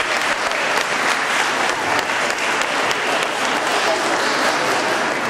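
Audience applauding: steady clapping from a crowd of many people.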